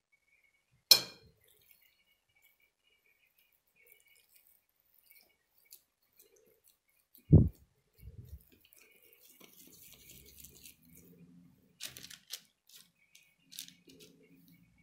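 Kitchen handling sounds: one sharp clink of a metal spoon against a dish about a second in, a dull thump near the middle, then faint scuffing and light taps as soft dough is shaped by hand and set on a metal baking tray.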